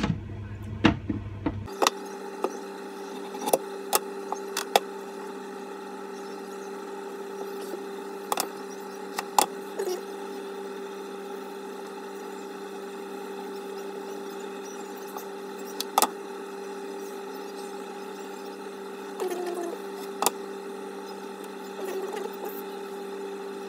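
Steady appliance hum with a level mid-pitched tone, under scattered sharp clicks and knocks from a knife, bowl and calamansi being handled on a kitchen counter. The knocks come thickest in the first few seconds and then a few more later.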